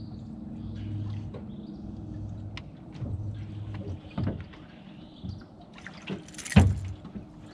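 Water splashing as a small hooked bass is reeled to the boat and swung aboard, with the loudest splash about six and a half seconds in, among light clicks.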